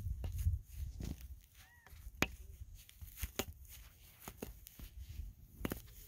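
Scattered light clicks and ticks as woven yarn loops are lifted and slipped off the metal nail pegs of a wooden frame loom, over a low handling rumble that fades about half a second in.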